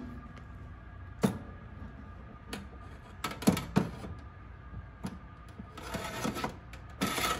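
A wire mesh air fryer rack clinking and scraping against the metal rails inside the oven as it is worked into the top slot. There are scattered sharp metallic clicks: one about a second in, several in the middle, and a quick run near the end.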